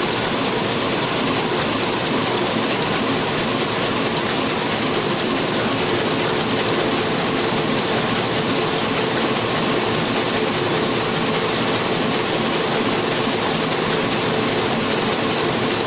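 Heidelberg single-colour sheet-fed offset printing press running: a steady, even mechanical noise with a faint hum under it.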